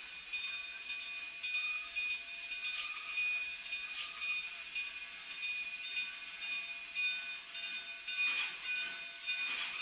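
A K-36 narrow-gauge steam locomotive and its work train roll slowly past with a steady rumble and hiss. Occasional metallic clanks are heard, strongest near the end. A steady high whine runs underneath throughout.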